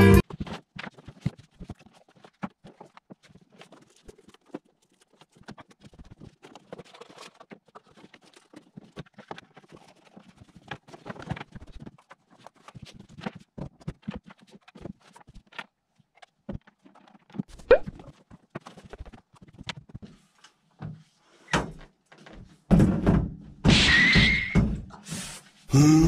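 Scattered clicks and knocks of audio gear and cables being handled on a table, with one sharper knock about two-thirds of the way in. Near the end, louder shuffling and scraping.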